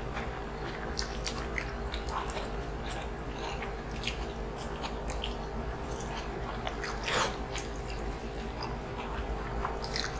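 Close-miked eating sounds of two people chewing lechon kawali (fried pork belly) in coconut-milk sauce with rice: wet chewing and lip smacks made of many short clicks, with one louder mouth sound about seven seconds in.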